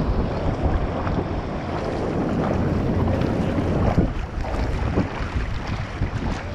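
Seawater sloshing and splashing right at a GoPro held at the sea surface, with wind buffeting its microphone.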